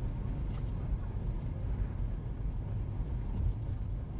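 Low, steady rumble of a car driving, heard from inside the cabin through a dashcam.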